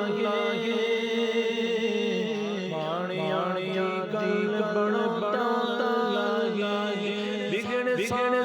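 Punjabi Sufi devotional kalam sung by a solo voice, in long held, wavering notes with quick melodic runs over a steady drone.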